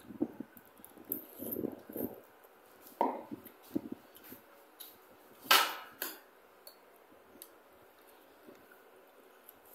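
Eating sounds over bowls of Maggi curry instant noodles: chopsticks and a spoon clinking and scraping against the bowls, with short slurps and chewing. The loudest single burst comes just past halfway, then only small clicks follow.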